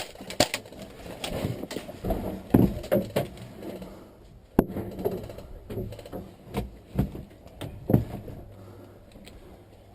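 Irregular knocks and thumps with rustling close to the microphone, one sharp crack about four and a half seconds in.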